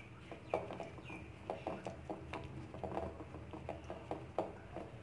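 A hand pressing and turning a chicken drumstick in a glass bowl of dry flour coating: irregular soft crunching and tapping, a few strokes a second and uneven.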